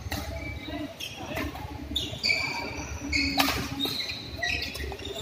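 Doubles badminton rally: rackets striking the shuttlecock with sharp smacks, the loudest a little past the middle, and court shoes squeaking on the mat in short high chirps from about two seconds in.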